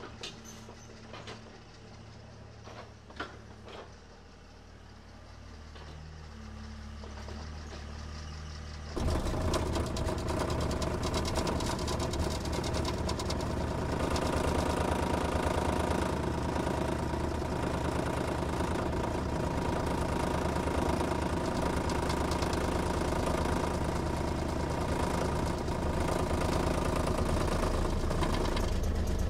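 Takeuchi TB045 mini excavator's diesel engine running, at first low and steady with a few clicks, then abruptly much louder from about nine seconds in and holding steady.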